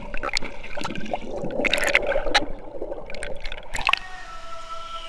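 Water splashing and gurgling around a camera that dips under the surface and back up in a wading-depth stream, with sharp splashes throughout. About four seconds in the splashing stops abruptly, leaving a quieter hiss with a faint steady tone.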